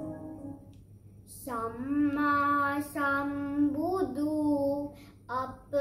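Soft keyboard music fades away in the first second. About a second and a half in, a young boy starts singing a slow Sinhala Buddhist devotional song in long held notes.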